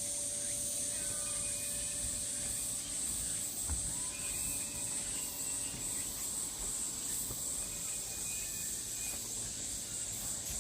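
Cicadas droning in a steady high-pitched chorus, with short faint bird chirps scattered through it.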